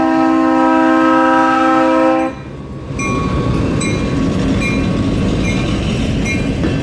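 Freight train's locomotive air horn sounding a steady chord of several tones, which cuts off sharply about two seconds in. The train then rolls past with a steady rumble and short metallic ticks about once a second.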